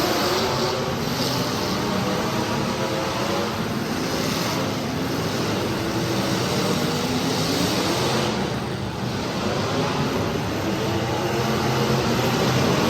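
Several demolition derby car engines running and revving at once, their pitch rising and falling unevenly.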